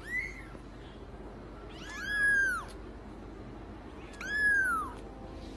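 A young kitten meowing in thin, high-pitched cries: a short one at the very start, then two longer ones that rise and fall in pitch, about two seconds apart.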